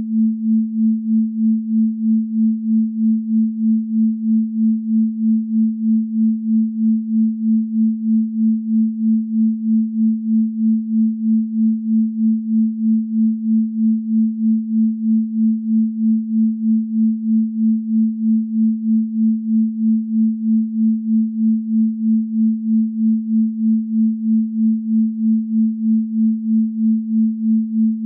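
A pure sine tone at 221.23 Hz, the 'Venus frequency' (the note A), held at one pitch. Its loudness pulses evenly about two and a half times a second.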